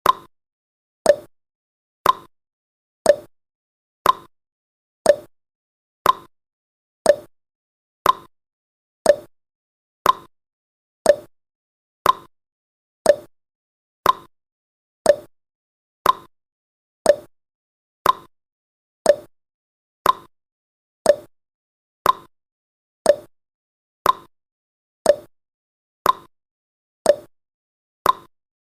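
Countdown timer's tick-tock sound effect: one short, sharp tick every second, alternating between a higher and a lower pitch like a clock.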